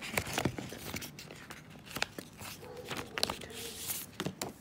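Hands handling a coin's card and plastic blister pack: irregular crinkling and sharp clicks of plastic and card.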